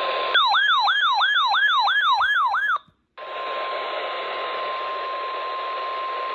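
NOAA Weather Radio's steady 1050 Hz warning alarm tone, heard over radio static. It is broken early on by about two and a half seconds of a fast-warbling electronic siren, about three pitch sweeps a second. After a brief cut to silence, the steady alarm tone returns.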